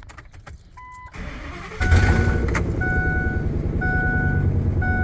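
Ford F350's V10 engine cranking briefly and catching about two seconds in, then running steadily with an exhaust leak. A warning chime sounds just before the crank and keeps beeping about once a second over the running engine.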